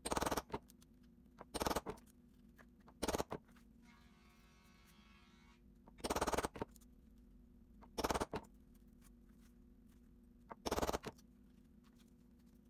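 Small metal hammer striking a round hole punch through parchment paper, several sharp blows at a time in six short bouts a second or two apart.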